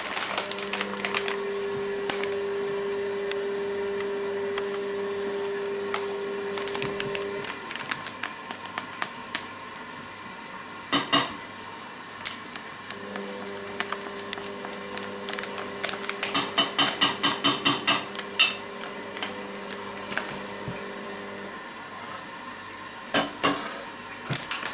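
Kitchen utensils clinking and knocking, a metal spoon tapping against bowls and containers as spices are measured in, with a fast run of clicks about two-thirds through. A steady low hum plays behind it, stopping about seven seconds in and coming back about halfway through.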